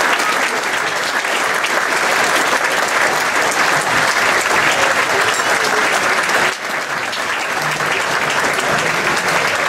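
Large crowd applauding, many hands clapping steadily, thinning for a moment about six and a half seconds in.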